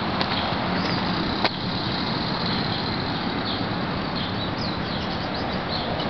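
Steady rushing outdoor background noise with a few faint, high bird chirps, and one sharp click about one and a half seconds in.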